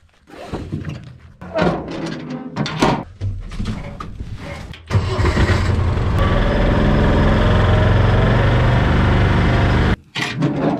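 Small farm utility vehicle's engine starting about five seconds in and then running steadily, loud and deep, after a few seconds of knocks and handling noises; it cuts off abruptly near the end.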